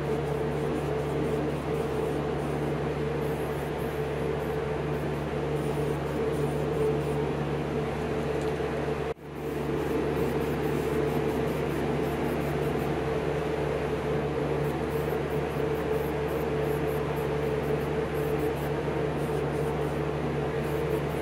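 Aerosol spray paint can hissing in short bursts as a steel bracket is sprayed black, over a steady fan hum with a constant tone. The sound drops out briefly about nine seconds in.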